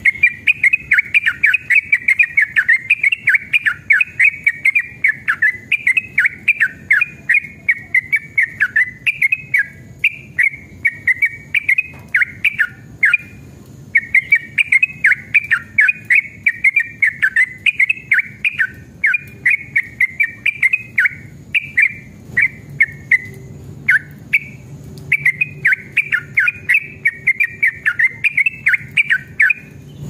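Yellow-vented bulbul singing a long, fast run of warbled chattering notes. The song breaks off briefly about 13 seconds in and again about 23 seconds in.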